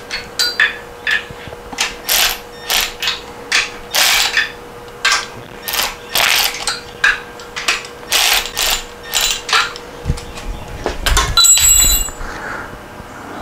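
Ratchet wrench clicking in repeated short strokes, about two a second, as the bolts joining the Porsche 912 crankcase halves are run down snug. Near the end comes a heavier metallic clank with a brief ring.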